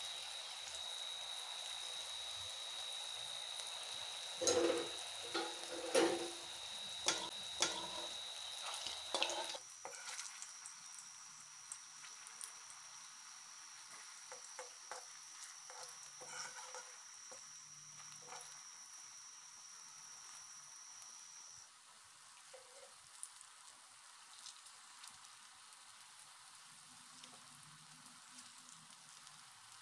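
Potato balls deep-frying in hot oil in a kadhai, sizzling steadily, with a run of sharp knocks of a wooden spatula against the pan between about 4 and 10 seconds in. The sizzle is quieter after that.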